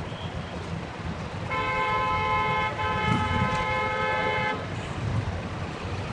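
A vehicle horn sounding, one long blast broken briefly into two, about one and a half seconds in and lasting roughly three seconds, over the low rumble of an engine running.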